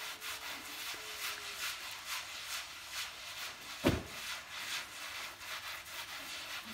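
Long-handled broom scrubbing a wet, soapy rug in repeated strokes, about two to three a second, with one loud thump about four seconds in.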